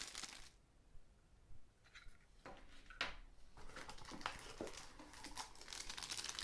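Faint handling noise of accessories and their packaging being taken out of a box: light rustling with scattered clicks and taps, sparse at first and busier from about two and a half seconds in.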